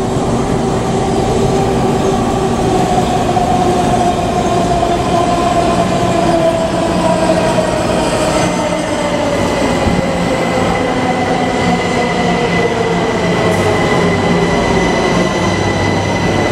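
Washington Metro subway train arriving at an underground platform and slowing: a steady rumble with a whine that falls in pitch as it slows. A steady high squeal joins about halfway through and runs to the end.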